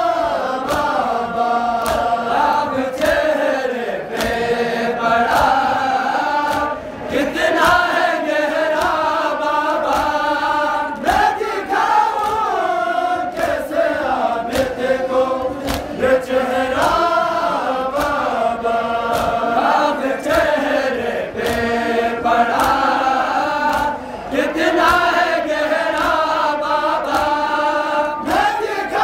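A group of Shia mourners chanting a nauha (lament) in unison, in repeated phrases that rise and fall. Regular sharp slaps keep the beat throughout, the chest-beating (matam) of the procession.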